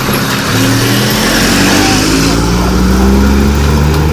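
Truck engine accelerating, its pitch climbing in steps as it shifts up through the gears.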